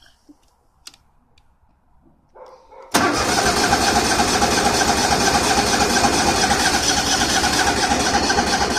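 A tractor's starter cranking the engine, cutting in sharply about three seconds in and running steadily and loudly without the engine catching: the engine won't start.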